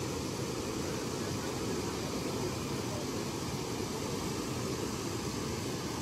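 Steady rushing of a shallow stream running over rocks and a small cascade, an even noise with no separate sounds in it.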